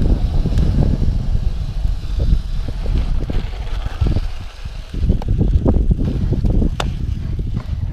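Wind buffeting the microphone of a camera on a bicycle descending at speed, a low rumble that dips briefly about four seconds in as the bike slows, then picks up again.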